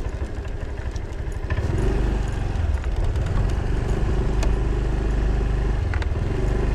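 A 125cc-class scooter's engine running at low revs, then opened up about one and a half seconds in and running steadily as the scooter moves off and travels along the road.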